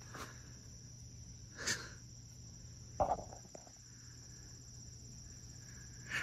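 Crickets trilling steadily at a low level, broken by a few brief, louder noises: one a little under two seconds in, a click with short tones about three seconds in, and another at the very end.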